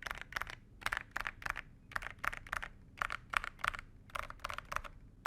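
Typing on a Monsgeek M2 metal-cased mechanical keyboard with Akko Haze Pink silent switches and ABS cherry-profile keycaps: muted keystrokes clicking in quick, irregular clusters of a few keys at a time.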